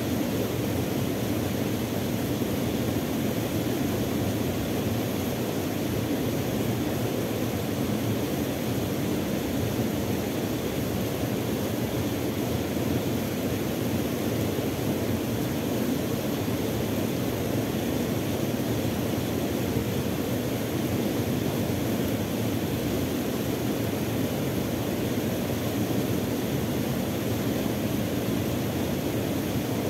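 Small waterfall rushing steadily into a river pool, an even, unbroken roar of water.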